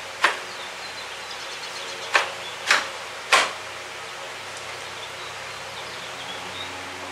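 Four short, sharp clacks, one about a quarter second in and three close together between two and three and a half seconds in, over a steady background hiss.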